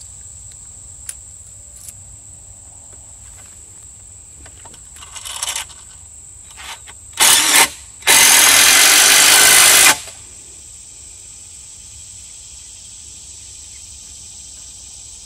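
Cordless impact driver driving a 5-inch lag bolt through a ladder rail into a log: a short burst, then about two seconds of continuous hammering. Crickets chirp in a steady high tone throughout.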